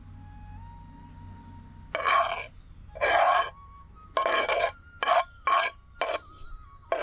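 Kitchen utensil scraping against terracotta cookware as grated vegetables are pushed from a clay plate into a clay bowl. About six short scraping strokes start two seconds in, roughly one every half to one second.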